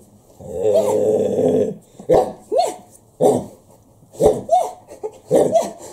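A man imitating a dog: one drawn-out growling call, then a string of short yips and barks.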